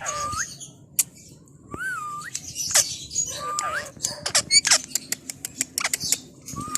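Green ringneck parrot chattering: several short whistled notes that rise and dip, mixed with sharp clicks and squeaky chirps.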